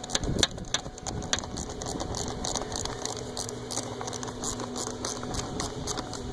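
Ratcheting gear wrench clicking in a quick irregular run as a hose clamp screw is turned loose, over a steady low hum.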